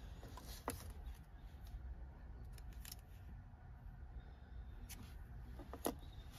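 Short plastic clicks and taps from a car's center-console storage tray and its lid being worked by hand, with a plastic card handled in between; the two sharpest clicks come about a second in and near the end.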